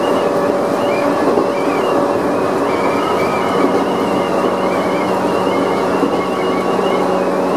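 Chichibu Railway 1000 series electric train (ex-JNR 101 series) running at speed, heard from the driver's cab. A steady running noise with a low hum and a high, wavering whine.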